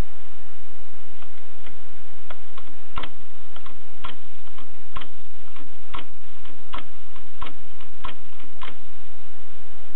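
Mignon index typewriter typing: a run of sharp mechanical clicks, a strong stroke about once a second with lighter clicks between, over a steady hiss.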